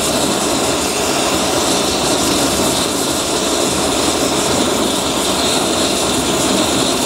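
Gas-and-air ring burner burning steadily with a loud, even rush of flame as it heats a finned engine cylinder to free a seized cylinder liner.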